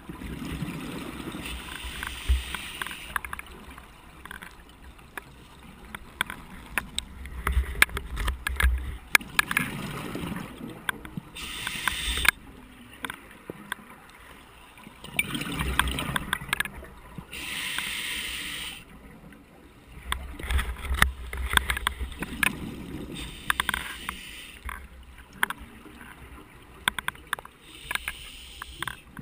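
Scuba diver breathing through a regulator underwater: exhaled bubbles rumble out in bursts every several seconds, with a couple of hisses of inhaled air between them. A loose camera housing rattles with many small clicks.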